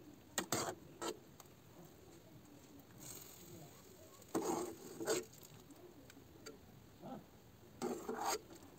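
Metal spoon scraping and knocking against a steel saucepan as cooked instant noodles are lifted out and the broth is stirred. It comes in a handful of short bursts, the loudest about halfway through and another near the end.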